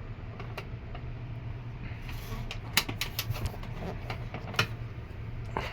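Scattered clicks and knocks of a plastic box fan cabinet being handled and turned, over a steady low hum.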